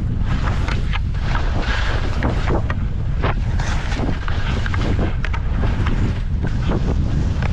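Wind buffeting the microphone of a skier moving downhill, a steady low rumble, with many short scrapes of ski edges on snow coming irregularly, several a second.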